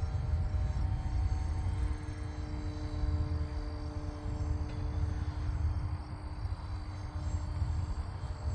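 Wind buffeting the microphone, with the faint steady whine of a small electric RC plane motor at low throttle in flight.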